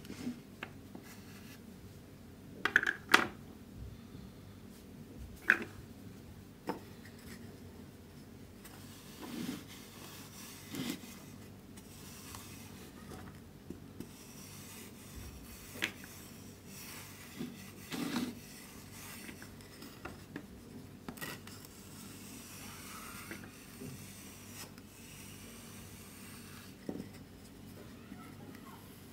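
Kinetic sand being cut and scraped with a plastic spatula, then pressed flat under a plastic rolling pin on a wooden tabletop: soft rubbing and crumbling with a few sharp taps of plastic, the loudest about three and five seconds in.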